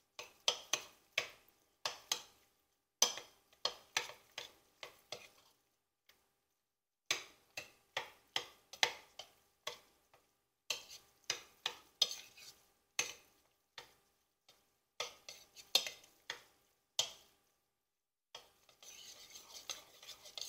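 A metal spoon stirring salt into crumbly ricotta curds in a ceramic bowl, clinking and scraping against the bowl in quick, irregular runs of strokes with short pauses between them.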